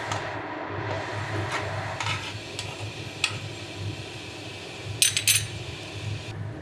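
Steel spoon stirring curry gravy in a kadai, clinking and scraping against the pan a few times and in a short cluster near the end, over a steady sizzle of the gravy cooking on the gas flame.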